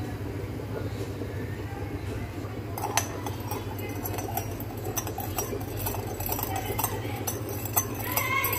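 A metal spoon clinking against a ceramic bowl as a sauce is stirred: many light, irregular clicks from about three seconds in, over a steady low hum.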